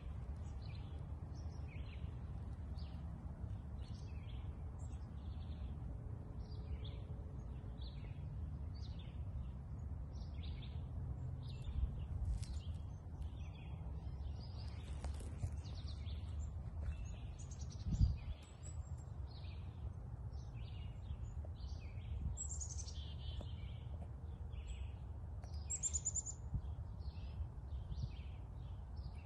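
Many small birds chirping in quick short notes throughout, over a steady low outdoor rumble, with one brief thump past the middle.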